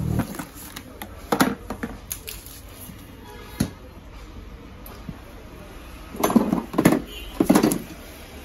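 Handling noises from a scooter seat and its new cover being worked on: a few scattered knocks, then a cluster of louder clunks and rustles about six to eight seconds in, over a low steady hum.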